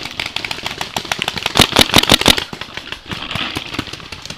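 Paintball markers firing rapid strings of shots, sharp pops at about five a second, loudest about a second and a half in; after about two and a half seconds the popping turns quieter.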